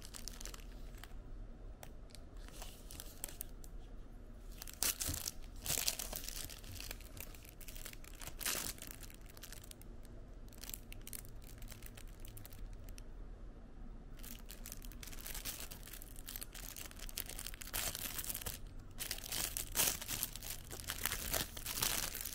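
Thin plastic wrapper crinkling and tearing as a disposable spoon is unwrapped, in irregular bursts of rustling that are busiest near the end.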